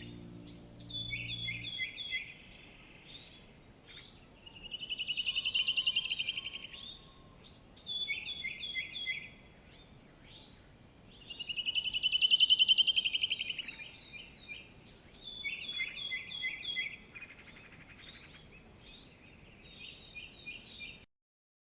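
Songbirds singing: repeated short chirping phrases, with a long fast trill that swells and fades twice, about six seconds apart. The tail of soft background music fades out in the first two seconds, and the sound cuts off just before the end.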